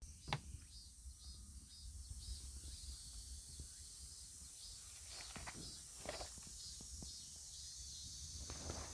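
Cicadas droning steadily high up, with an even pulsing in the chorus. A few short clicks and rustles are heard over it, the loudest near the start.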